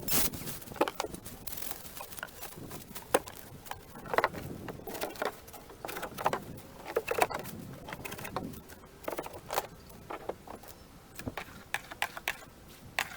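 Irregular knocks, clatter and rustling of cut tree branches being handled, with no saw running.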